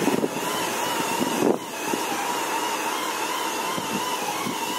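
A steady motor whine with a hiss, its pitch wavering slightly, with a few short rubbing strokes from a microfiber towel wiping polishing compound off a car's paint.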